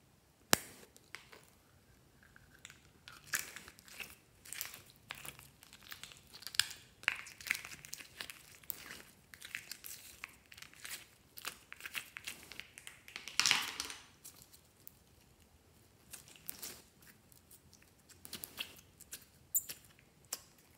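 Slime being squeezed out of a soft plastic mold and stretched by hand: irregular sticky clicks and crackles, with a louder crackling stretch about two-thirds of the way through.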